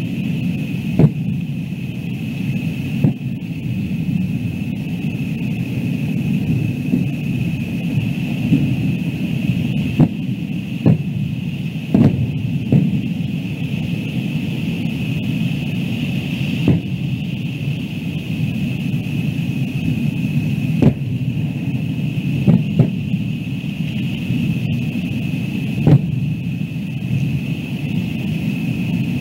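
Fireworks shells bursting at a distance: about a dozen sharp booms at uneven intervals, a few in quick pairs. Underneath runs a steady low rumble and a constant high-pitched tone.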